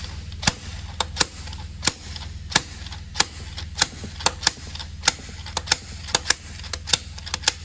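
Slide-hammer injector puller on a Renault 1.5 dCi (K9K) diesel: the sliding weight strikes its stop in quick, uneven metal knocks, about two or three a second. It is working a carbon-seized Delphi injector up out of its bore.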